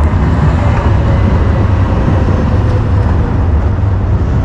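Yellow articulated electric tram running beside the tracks: a steady low rumble with a faint motor whine.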